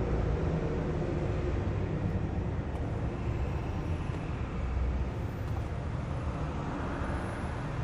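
Waterfall roar: a steady, full rushing of falling water.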